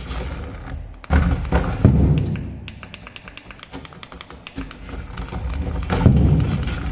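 Toy 1:18 scale RC car knocking and thumping on a hard surface, with a short run of fast clicking in the middle and another loud knock near the end.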